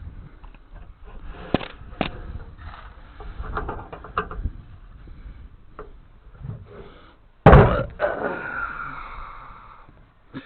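Hand tools working on the rusted steel of an old truck: scattered metallic clicks and knocks, then about two-thirds of the way in a single loud metal bang that rings on and fades over a couple of seconds.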